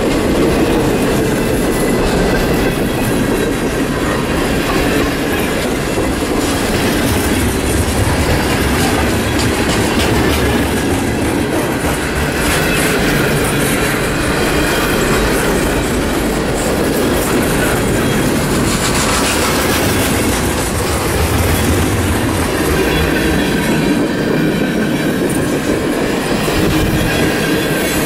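Long mixed freight train rolling past, its cars' wheels clacking over the rail joints with some wheel squeal, steady throughout.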